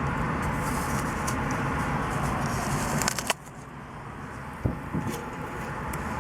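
Steady rush of passing car traffic that drops away sharply a little past halfway, with scattered crisp clicks and crackles of someone chewing a Fuji apple close to the microphone.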